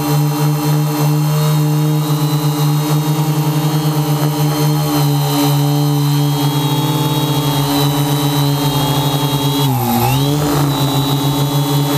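Electric motors and propellers of a multirotor quadcopter, heard from on board: a steady pitched hum that pulses in a fast beat as the motors run at slightly different speeds. About ten seconds in the pitch dips briefly and comes back up with a throttle change.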